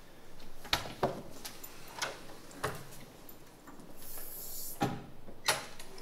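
Footsteps and a door being opened and shut: a series of short knocks and clicks, with a brief high swish a little before the end.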